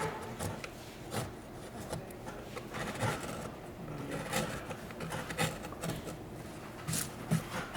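Hand carving tool cutting and scraping into a wooden block: a run of short, irregular scraping strokes.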